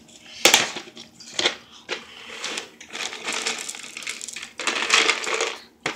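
Dry cat treats rattling in a plastic canister as it is shaken open and tipped, and spilling onto a tile floor. Sharp rattles come about half a second and a second and a half in, then a longer stretch of rattling from about two and a half seconds to near the end.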